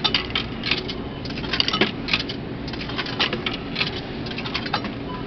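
A run of light metallic clicks and clinks, irregular and close together: coins being handled and fed into a drink vending machine.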